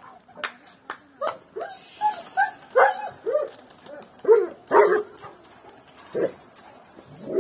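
An animal giving about a dozen short, yelping calls at irregular intervals, each rising and falling in pitch, with a few sharp clicks among them.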